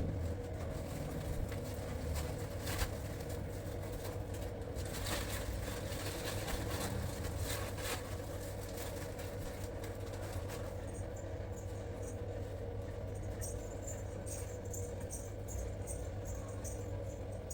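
Light taps and clicks of stuffed okra pieces being set down in an air fryer basket, over a steady low background hum.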